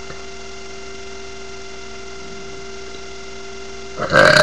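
Steady electrical hum, then about four seconds in a girl's loud, drawn-out burp begins.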